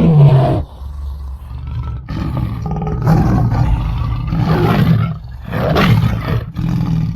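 Tiger roaring: a loud roar that falls in pitch at the start, then a string of long, deep growls that swell and fade several times.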